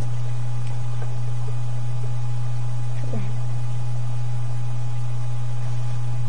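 A steady low hum at an unchanging level, with a faint, brief falling squeak about three seconds in.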